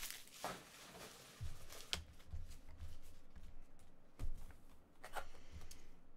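Light handling noises of a sealed trading-card box and a box cutter: scattered knocks and clicks with soft rubbing, the sharpest knock a little past four seconds in.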